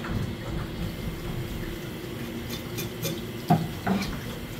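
Steady low hum throughout, with a sharp knock about three and a half seconds in and another about half a second later as gizzard shad are handled on a plastic cutting board.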